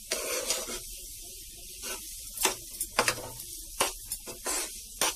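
Metal spoon stirring and scraping a bread-crumb and sugar mixture around a hot pan, with sharp spoon scrapes and clicks against the pan every second or so over a light steady sizzle of the mixture frying in ghee.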